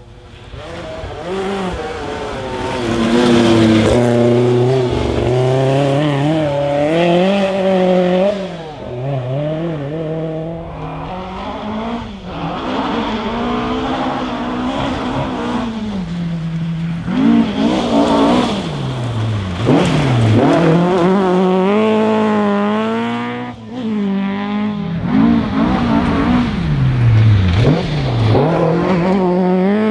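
Historic rally car engine revving hard, its pitch climbing and falling again and again through gear changes and lifts off the throttle. It grows from faint to loud over the first few seconds.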